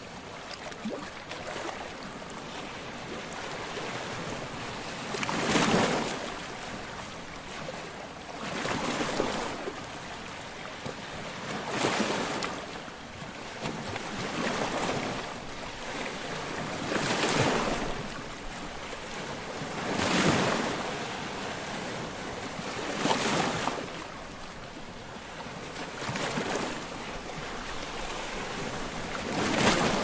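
Surf washing onto a seashore: a steady rush of water that swells into a breaking wave about every three seconds.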